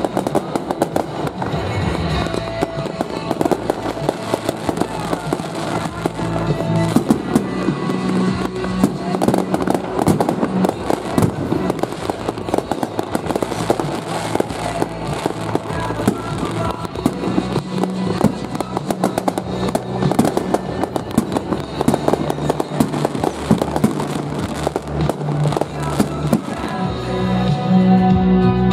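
Aerial firework shells bursting and crackling in rapid, overlapping succession, with music playing at the same time. Near the end the bangs thin out and the music comes forward.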